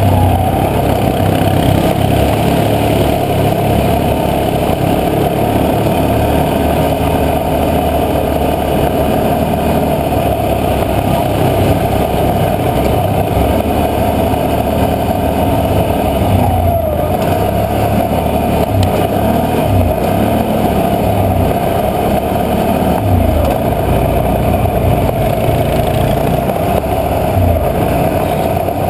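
ATV engine running steadily as the quad rides along a rough dirt trail, heard close on the machine's own camera, with continuous rumble and no break.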